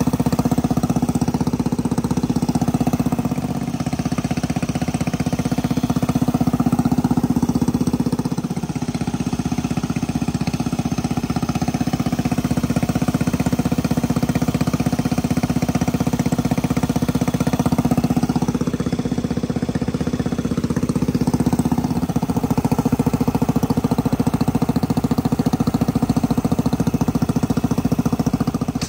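A small petrol engine running steadily at an even speed close by, its firing pulses plain, with a couple of small dips in level a few seconds in.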